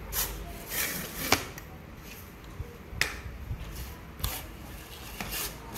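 Handling of a red fiberglass telescopic landing-net handle: the tube sections rubbing and sliding against each other in a few short swishes, with light clicks and knocks, the sharpest about a second and a half in.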